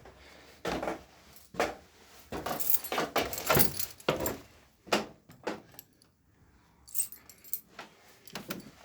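Irregular knocks and clatter, roughly one a second, with a metallic jingle like a bunch of keys jangling as someone moves about.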